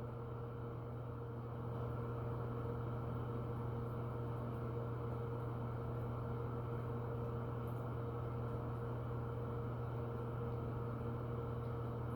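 Neopixel lightsaber's sound board playing its steady idle hum, a low drone with a fainter higher tone above it.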